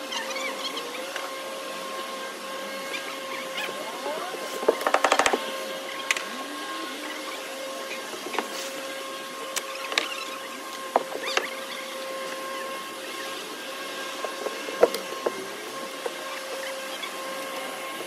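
Sharp shots of a pneumatic roofing nailer fastening asphalt shingles: a quick string of about eight shots about five seconds in, then single shots every second or few. A steady hum runs underneath.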